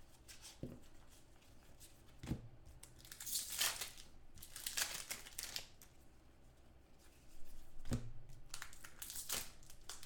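Trading-card pack wrappers crinkling and tearing as they are ripped open by hand, in several bursts. A few short, soft knocks come in between.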